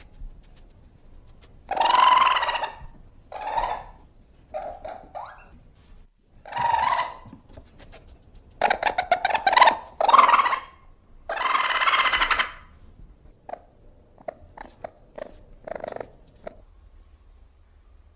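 Cartoon alien creature's vocal sound effects: a string of short squeaky cries and chirps separated by pauses. Around the middle comes a burst of rapid clicking chatter and a longer cry, and toward the end there are fainter, shorter chirps.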